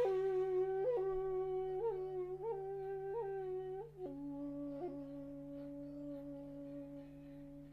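Shakuhachi playing a long held note decorated with quick upward flicks about once a second, then dropping to a lower note a little after four seconds, which is held and slowly fades away.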